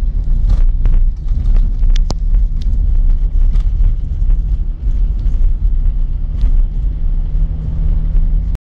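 Car driving on a snow-covered road heard from inside the cabin: a steady low rumble of engine and tyres with scattered short knocks and clicks, cutting off abruptly near the end.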